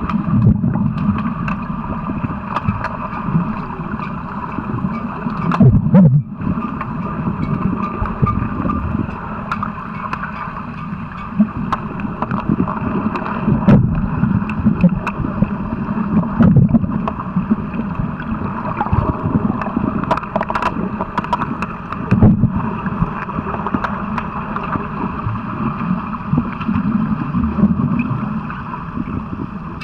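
Pool water heard through an underwater camera: steady muffled water noise with bubbling from kicking fins, crossed by scattered sharp clicks.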